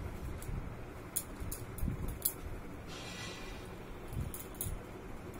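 Handling noise from a garment and its parcel packaging: scattered light clicks and soft knocks, with a brief rustle about three seconds in.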